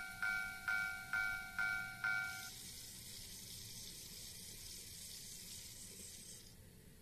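Japanese level-crossing warning bell on a model railroad ringing its two-a-second 'kan-kan' strikes, five times, then stopping about two and a half seconds in. A steady hiss follows and cuts off shortly before the end.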